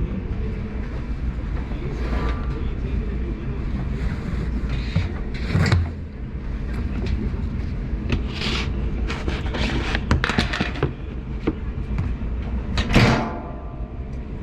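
A motor running steadily, with scattered knocks and clanks over it and two louder bursts about five and a half and thirteen seconds in.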